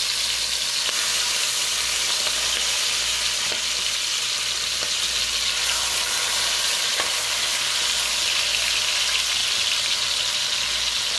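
Chicken leg quarters sizzling steadily as they brown in hot oil and caramelized sugar, with an occasional light click of a fork against the pot as pieces are laid in.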